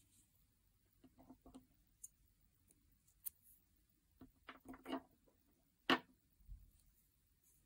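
Faint scattered clicks and soft rustles of a 4 mm crochet hook pulling DK yarn through as slip stitches are worked, with one sharper click about six seconds in.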